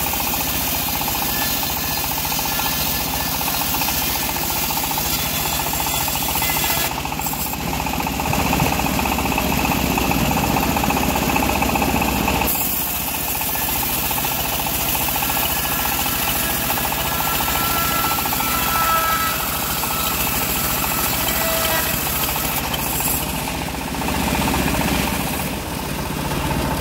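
Engine-driven home-built bandsaw mill running steadily as a teak log on its carriage is fed into the blade, a continuous machine drone with blade noise. The sound changes character about halfway through.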